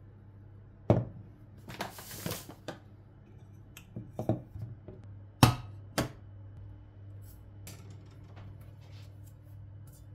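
Kitchen handling sounds: a sharp knock and then a short scraping rustle as a glass sugar jar and its bamboo lid are handled on the counter, followed by two sharp clanks as a stainless-steel pot is set on a glass-ceramic hob. A low steady hum runs underneath.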